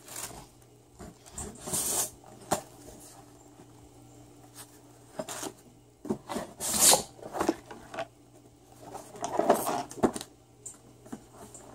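Small cardboard boxes being lifted out, slid and set down on a table: scattered scrapes of cardboard and a few light knocks.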